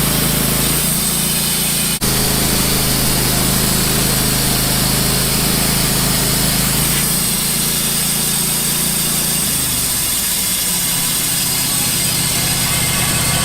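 Wood-Mizer LT15 band sawmill running steadily as its blade cuts through a soft maple log; the engine note changes about ten seconds in.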